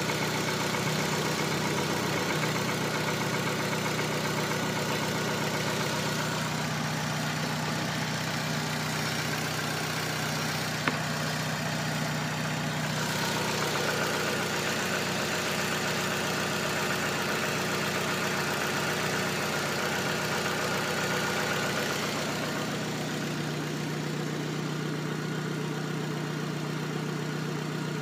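Rover 25's 1.4-litre K-series four-cylinder petrol engine idling steadily, with one short click about eleven seconds in.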